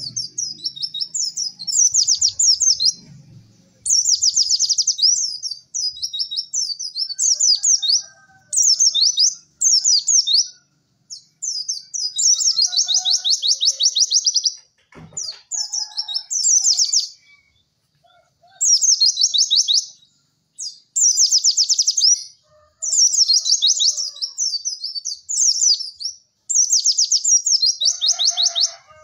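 White-eye (pleci) singing: fast, rattling high-pitched chatter in phrases of one to two seconds, repeated with short pauses, the 'cek cek werr' song. Fainter, lower chirps sound between phrases, and there is a single click about halfway through.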